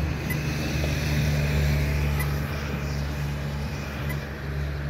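Steady low rumble of road traffic, cars idling and moving at the intersection, with a faint short beep about every two seconds.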